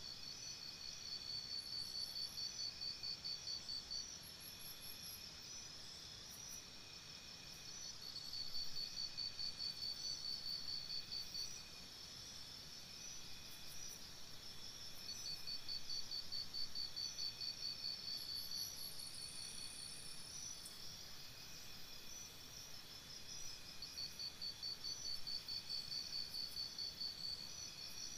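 Crickets chirping in fast pulsed trills that swell and fade in bouts of a few seconds, with a few brief high chirps mixed in.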